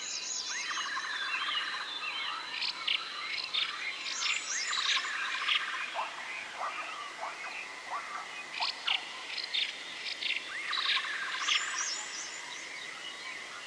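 Forest ambience of several birds chirping and trilling, with short repeated calls coming in clusters, over a steady thin high tone.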